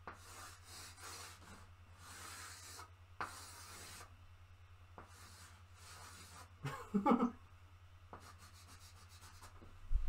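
Chalk scraping on a blackboard as lines are drawn: a series of soft rasping strokes, then a quick run of short strokes a little after eight seconds. A brief voice-like hum about seven seconds in is the loudest moment.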